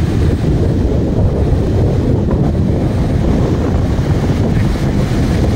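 Steady rush of water cascading over rock ledges into a lagoon, mixed with wind buffeting the microphone.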